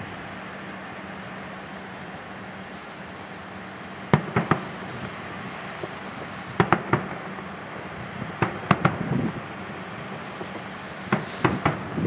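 Distant fireworks display: shells bursting in quick clusters of three or four sharp bangs, with four clusters a couple of seconds apart.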